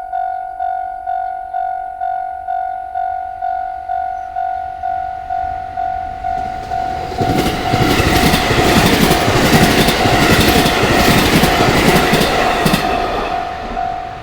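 Japanese railway level-crossing alarm ringing in a steady repeating ding, about two strikes a second. About seven seconds in, a train runs through the crossing: the rush of its wheels with rapid clicks over the rail joints rises over the bell for about six seconds, then fades and leaves the bell ringing.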